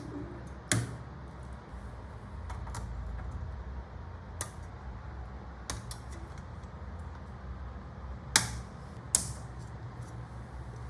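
Scattered sharp clicks and taps of PC cable connectors and case parts being handled and plugged into a motherboard, the loudest two about a second apart near the end, over a low steady hum.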